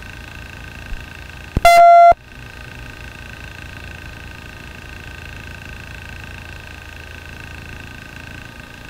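A loud electronic beep of about half a second, about two seconds in, opened by a click. Under it runs a steady hum of helicopter cabin noise on the crew's radio and intercom audio.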